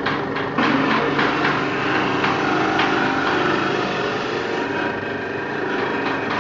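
Coconut grating and milk-pressing machine running steadily under load, its motor humming while chunks of fresh coconut meat fed into the stainless-steel hopper are shredded, with irregular knocks as the pieces catch on the grating rotor.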